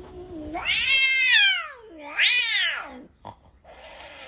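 Tabby cat yowling twice in long drawn-out calls that rise and then fall in pitch, then hissing near the end: the sounds of an irritated cat protesting at being held.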